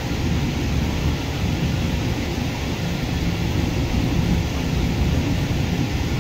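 Distant jet airliner's engines giving a steady low rumble as it climbs away after takeoff.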